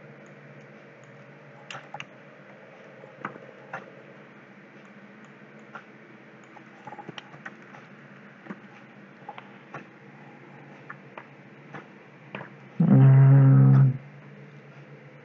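Computer keyboard keys clicking one at a time as text is typed and deleted, over a steady low hum. About 13 seconds in, a loud low pitched tone lasts about a second and is the loudest sound.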